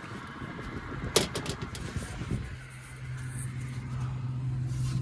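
A sharp knock about a second in, then a steady low hum from the Trane package heat pump that sets in about halfway and grows louder.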